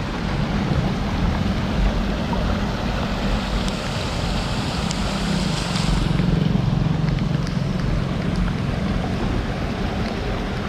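Steady wash of rain and wind noise on a GoPro's microphone, with the low rumble of road traffic underneath.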